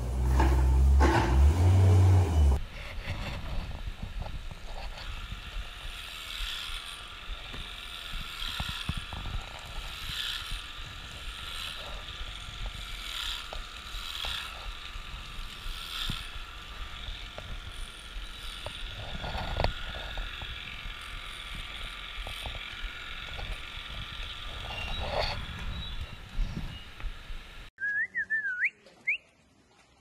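Electric animal clippers running steadily with a high whine as they shear the hair of a cow's tail. Before that, a compact wheel loader's engine runs loudly for about two seconds, and near the end there is a short wavering whistle-like tone.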